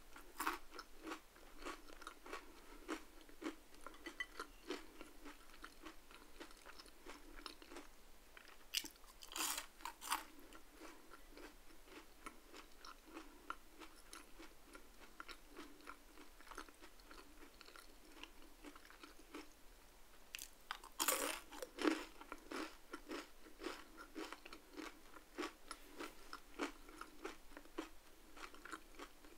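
Close-miked crunching and chewing of crispy crinkle-cut fries, with two louder bursts of crunching bites, about a third of the way in and again about two-thirds through.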